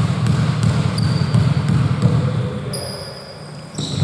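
Basketball being dribbled on the court, bouncing about three times a second, with sneakers squeaking on the floor briefly about a second in and again near the end.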